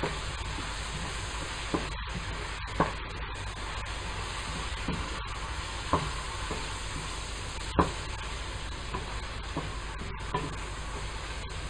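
Vegetables and chopped hot dog sizzling steadily in a frying pan while a wooden spoon stirs them, with a few sharp knocks of the spoon against the pan.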